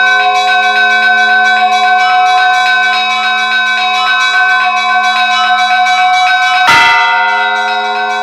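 Church bells ringing in a full peal: smaller bells struck in quick, even strokes over a bed of steady ringing tones. A heavy, deep bell stroke comes in near the end and is the loudest sound.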